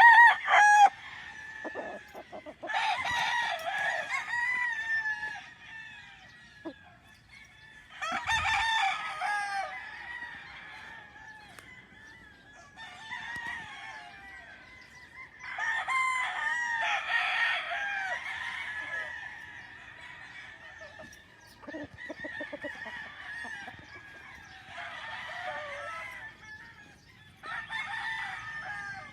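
Roosters crowing one after another every few seconds, with chickens clucking between the crows; a loud burst opens the stretch.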